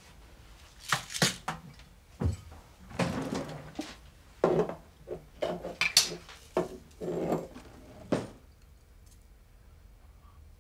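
Crockery and cutlery being handled at a kitchen counter: a run of knocks, clinks and clattering that stops a couple of seconds before the end.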